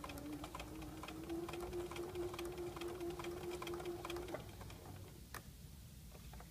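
Electric domestic sewing machine stitching a seam. The motor hum rises in pitch as it speeds up in the first second, runs steady, then stops about four seconds in. Light clicks sound throughout.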